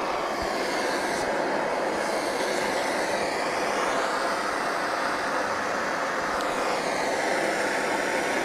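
Steady rushing noise, its upper tone slowly sweeping up and down.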